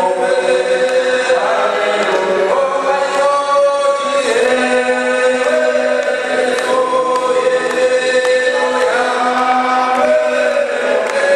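A men's church choir singing together in slow, long-held notes, with one man leading through a handheld microphone.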